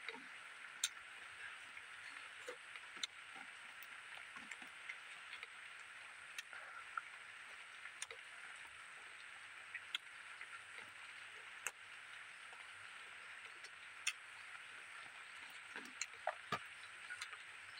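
Close-up eating sounds of a man eating rice and fish curry by hand: scattered wet mouth clicks and smacks while chewing, about one every second or two, over a steady high hiss.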